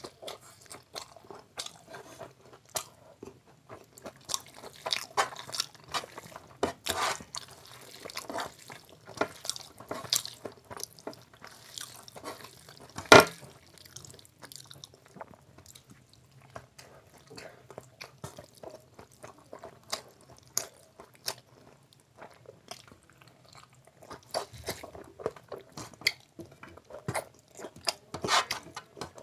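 Close-up eating sounds: a person biting and chewing crisp fried food, with crunching, wet mouth sounds and the squelch of a hand mixing rice and curry on a metal plate. The many short clicks and crackles are loudest in one sharp click about halfway through.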